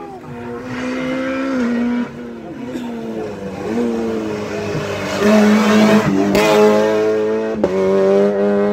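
Rally car engine at full throttle on a special stage, its pitch climbing and then dropping with each gear change as it approaches. It is loudest as the car passes close by, from about five seconds in.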